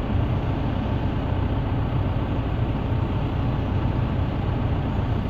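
Backhoe engine idling, a steady low-pitched running without change.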